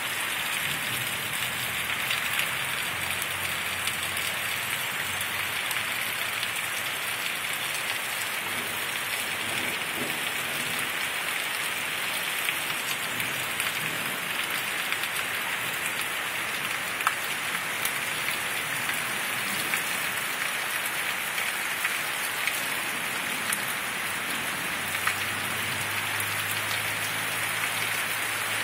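Heavy rain falling steadily in a thunderstorm, with scattered louder drops ticking on a nearby surface.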